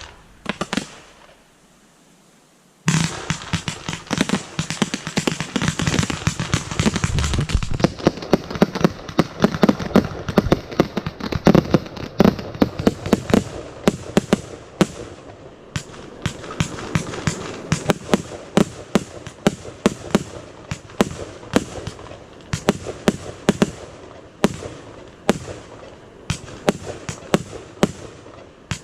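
Fireworks going off: after a near-quiet pause, a dense rapid salvo of bangs and crackling breaks out about three seconds in, then keeps on as a fast stream of sharp reports, several a second.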